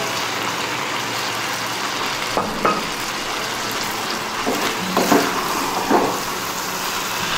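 Noodles and vegetables sizzling in gravy in a hot pan, stirred with a wooden spatula that knocks and scrapes against the pan a few times.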